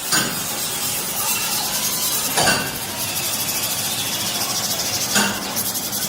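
Steady hissing shop noise from metalworking, with three short knocks: one at the start, one about two and a half seconds in and one about five seconds in.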